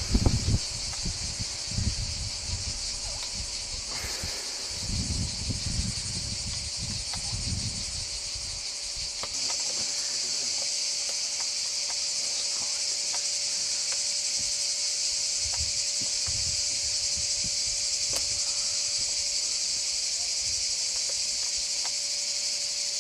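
A dense, steady chorus of cicadas buzzing, which steps up louder a little over nine seconds in. Low rumbling on the microphone comes and goes during the first several seconds.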